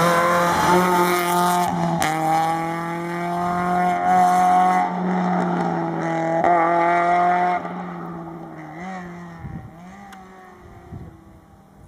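Rally car engine revving hard on a tarmac special stage, held high with brief dips at lifts or gear changes about two, five, six and a half and seven and a half seconds in. After that it fades as the car drives away.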